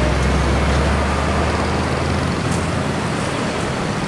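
Road traffic passing close by: a car and a van drive through the bend with engine and tyre noise. A low engine drone is strong at first and fades about a second and a half in.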